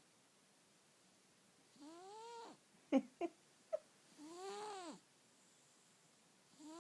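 Sleeping cat snoring: squeaky, whistle-like snores whose pitch rises and then falls, each under a second long and coming about every two and a half seconds. Three short sharp clicks fall between the first two snores.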